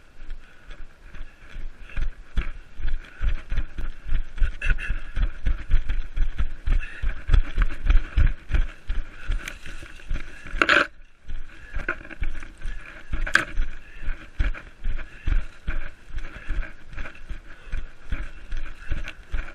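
Running footsteps on forest ground, a quick regular thudding of about two to three steps a second, with rustling as leafy undergrowth brushes the runner. A single sharp, loud noise comes about eleven seconds in.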